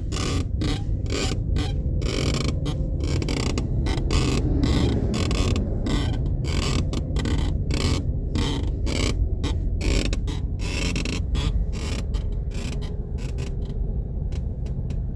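Lada Iskra driver's seat creaking and clicking over and over, a few short irregular creaks a second, over a steady low rumble: a seat creak that has already appeared on a car with 10,000 km.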